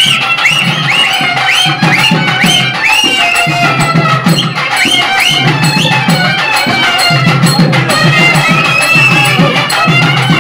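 Loud traditional Tamil festival music: a high-pitched wind instrument playing short, repeated upward-swooping phrases over fast, dense drumming.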